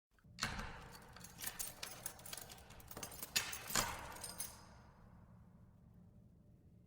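Keys jangling and a key being worked in a door lock: a run of sharp metallic clicks and rattles for about four seconds, then fading away.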